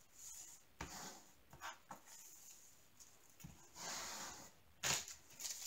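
Faint brushing and rubbing of a hand smoothing a diamond painting canvas flat, with a few soft knocks and a longer swish about four seconds in.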